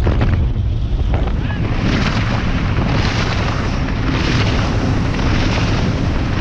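Motorboat running at speed: wind buffeting the camera's microphone over a low rumble, with the hiss of spray thrown off the hull swelling and fading every second or so.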